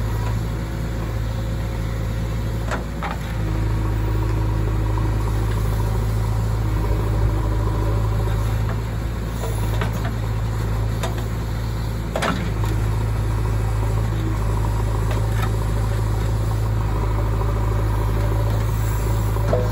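JCB 3DX backhoe loader's diesel engine running steadily while its backhoe digs sand, with a few sharp knocks from the working bucket and arm.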